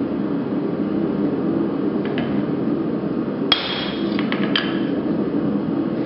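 Steel knocking against the anvil and bending jig: one sharp ringing clink about three and a half seconds in, a few light clicks, and a second ringing knock about a second later, over a steady low hum.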